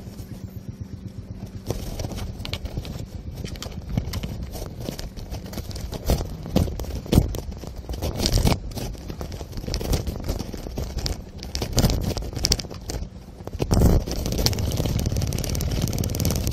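Irregular knocks, clatters and scrapes from handling a boat fishing rod and reel, with rough rumbling noise. A steadier rushing noise comes in near the end.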